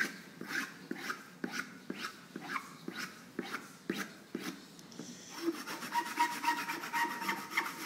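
A hand tool scraping and rubbing across a clay surface in short strokes, about two a second. After about five seconds a steady high tone joins the scraping.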